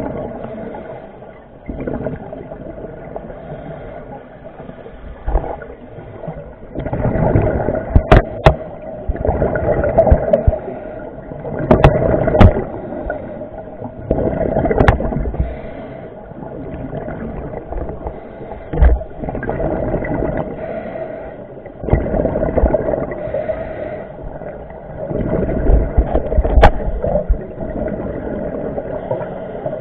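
Underwater sound of a scuba diver's exhaled regulator bubbles, heard through a camera housing: bubbly surges of water noise every few seconds over a steady hum, with a few sharp knocks on the housing.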